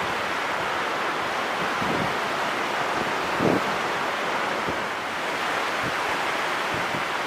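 Ocean surf washing steadily on a beach, with wind buffeting the microphone in a few short low gusts, the strongest about halfway through.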